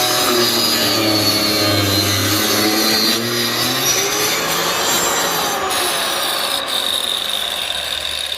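Bosch marble saw, a handheld electric circular saw, cutting garapa amarela hardwood. It runs continuously with a rasping cut, and the motor's pitch shifts and sags as the blade bites into the wood.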